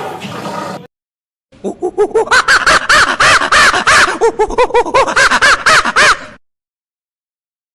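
An animal's rapid series of short pitched calls, each rising and falling, about three or four a second for some five seconds, following the abrupt end of a rougher sound and a second of silence.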